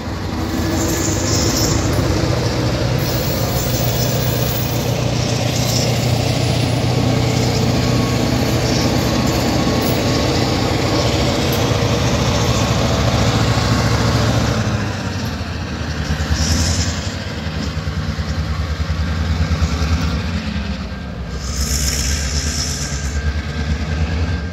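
EMD diesel road-switcher locomotives, a GP38-2W and a GP9RM with a yard slug, moving past with their engines running in a steady low drone over the rumble of wheels on rail. The drone shifts after about fourteen seconds, and two short hisses come through, one about sixteen seconds in and a longer one near the end.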